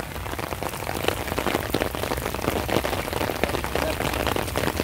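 Heavy rain falling onto wet pavement: a dense, steady patter of many drops.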